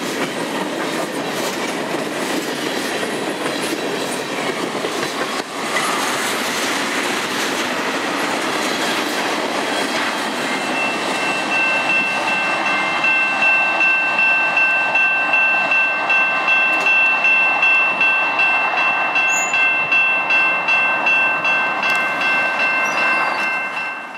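Freight cars of a long train rolling past close by: a steady rumble of wheels on rail, with a regular clickety-clack of wheels over rail joints. About eleven seconds in, a steady high-pitched tone joins it and holds to the end.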